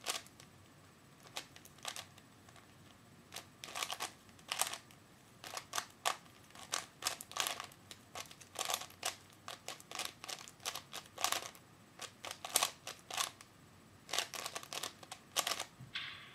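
Store-bought 3x3 Rubik's Cube being turned fast in a speedsolve: irregular runs of plastic clicks and clacks from the layers, with brief pauses between bursts of turns.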